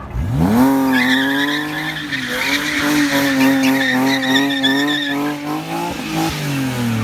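BMW E46 330i's 3.0-litre straight-six revving up hard and held at high, wavering revs while the rear tyres spin and squeal in a smoky burnout drift. The revs drop away near the end.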